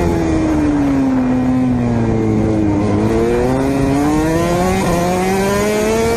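Yamaha NMax scooter's single-cylinder engine running under way, its pitch falling for about the first three seconds as the throttle eases, then rising steadily as it speeds up again.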